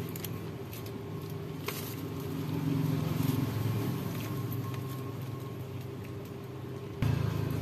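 A motor vehicle engine running steadily, a low hum that swells a little and steps up suddenly louder near the end, with a few light clicks of packaging being handled.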